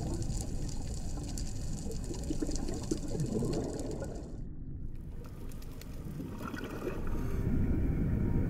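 Water bubbling and gurgling over a low rumble, with fine crackling on top. The crackling drops out briefly about halfway through.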